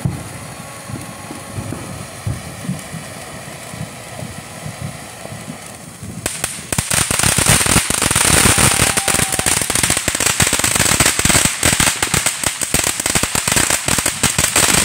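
Firework fountain spraying sparks with a steady hiss, then about six seconds in a much louder, dense crackling of countless tiny pops sets in and keeps going.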